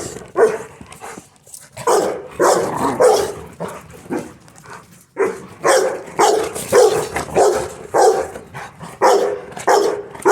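Young Rottweiler barking repeatedly, about two barks a second, with short pauses about a second and a half in and again near the middle.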